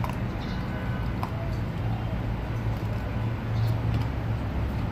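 Steady low engine rumble, with a few faint clicks.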